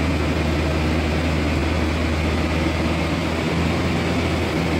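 Tadano truck-mounted crane's diesel engine running at a steady speed, giving a constant low drone while the crane holds a suspended load.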